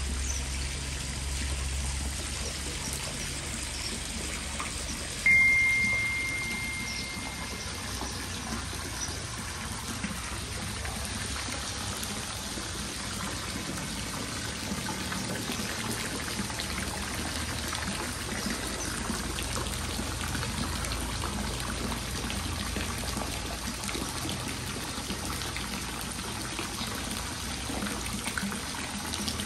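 A thin stream of water pouring steadily into a koi pond, splashing on the surface. About five seconds in, a single high-pitched tone sounds suddenly and fades away over about two seconds.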